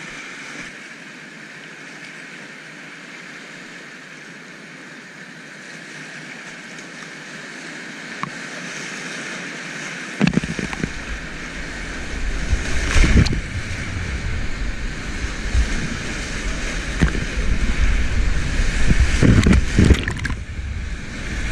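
Kayak running a whitewater rapid: a steady rush of fast water, then from about halfway in a louder, rougher rush as waves break over the bow and paddle. Heavy splashes hit the camera twice, the second near the end.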